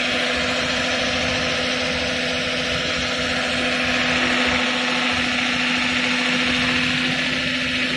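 Automatic CNC wood lathe polishing a turned wooden spindle: the polishing head's electric motor runs steadily with a constant hum while its spinning polishing wheel rubs along the turning wood with a steady hiss.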